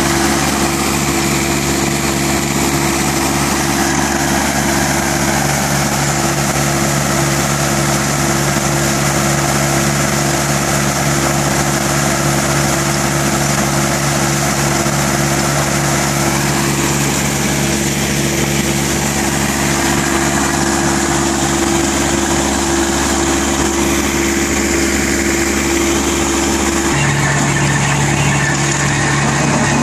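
Powerscreen Chieftain 2100 tracked screening plant running under load: its Deutz diesel engine drones steadily together with the shaking screen and running conveyors. Near the end the low tones of the drone shift.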